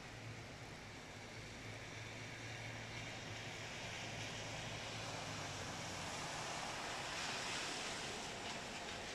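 Rain on a wet street: an even hiss that swells through the middle and eases near the end, over a faint low steady hum.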